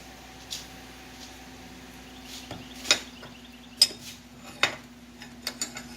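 Several sharp, irregularly spaced metal-on-metal knocks and clinks from steel bar stock being worked by hand for bending, with a steady low hum underneath.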